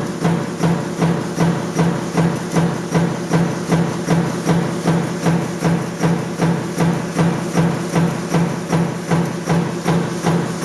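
Stamping press running continuously, striking about twice a second in an even rhythm over a steady low hum.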